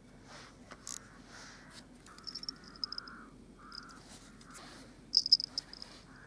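Runs of short, high chirping calls, one run a little past two seconds in and a louder one about five seconds in, with scattered clicks over a low steady background hum.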